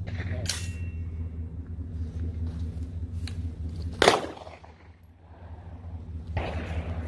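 A Glock 17 9mm pistol is fired once about four seconds in: a single sharp, loud shot with a short decaying echo. A fainter sharp crack comes about half a second in, over a steady low rumble.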